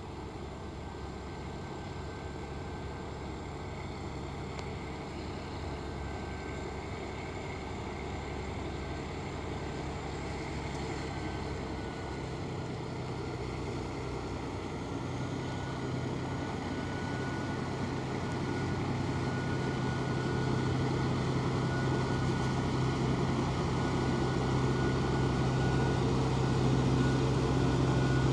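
TGM23V48 diesel shunting locomotive running steadily as it hauls hopper wagons, growing louder as it approaches.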